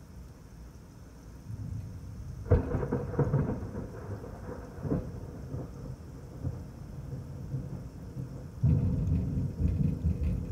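Thunder: a sharp crack about two and a half seconds in rolls on into a rumble for a couple of seconds and dies away, then a second loud rumble starts near the end.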